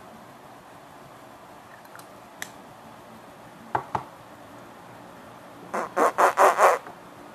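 Lips smacking close to the microphone: a single smack, then two more a little later, and near the end a quick run of about six loud kissing smacks in about a second.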